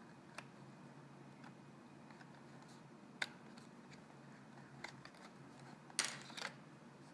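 Small clicks and taps of laptop RAM modules being pried from their slot and handled, with a sharper click about three seconds in and a short cluster of clicks near the end.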